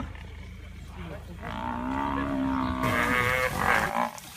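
African (Cape) buffalo bellowing in distress while held down by lions. A long drawn-out call comes about a second in, followed by higher, wavering calls.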